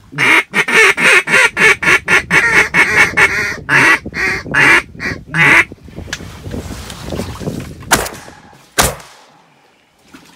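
Rapid, loud goose honking for the first five seconds or so, then two shotgun shots less than a second apart a little after the middle.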